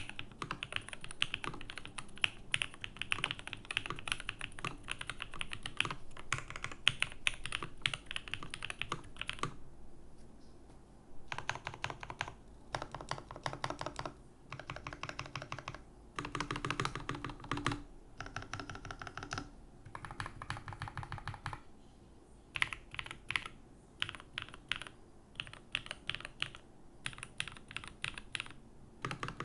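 Typing on a custom mechanical keyboard with lubed BCP linear switches (Cherry top housings, Cream stems, H1 bottom housings) in an aluminium full plate with no foam, under R3 keycaps. Fast continuous keystrokes for about the first ten seconds, then typing in shorter runs broken by brief pauses.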